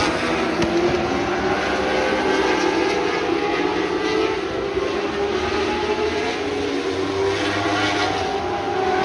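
Several lightning sprint cars' engines running at racing speed on a dirt oval. Their overlapping engine notes rise and fall in pitch as the cars lap and pass.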